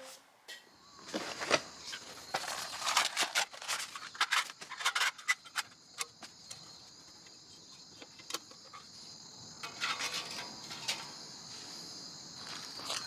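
Steady high insect chirring, with a scatter of sharp clicks and knocks, thickest in the first half and again near the end.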